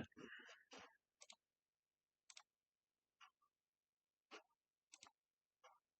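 A few faint, isolated computer mouse clicks, spaced about a second apart, against near silence.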